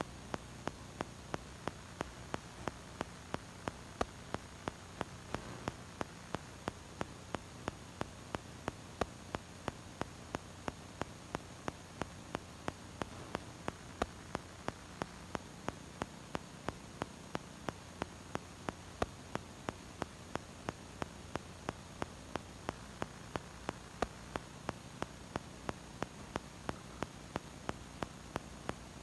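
Steady electrical hum and hiss, with a sharp click repeating evenly nearly three times a second.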